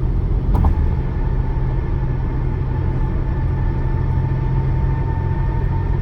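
Car tyres running on a Florida-grooved concrete bridge deck: a steady road rumble with a steady hum from the grooves over it. A short click about half a second in.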